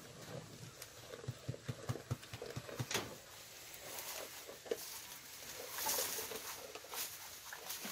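A goat eating feed from a feeder: a quick run of short, low crunching chews about a second in, lasting roughly two seconds, then rustling near the end.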